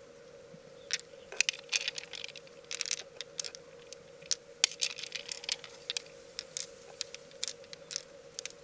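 Mussel shell and pearls being handled: irregular light clicks and short scrapes of hard objects, some quick runs of taps, over a faint steady hum.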